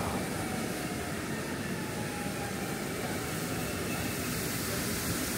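Steady low rumble and hiss of a passenger train running.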